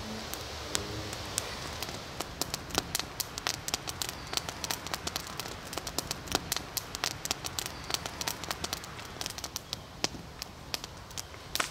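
Wood campfire of small sticks crackling, with irregular sharp pops that come thicker after about two seconds.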